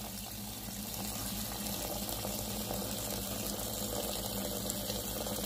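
Tap water running steadily into a bowl of lettuce leaves, splashing onto the leaves and the pooled water. A low steady hum sits underneath.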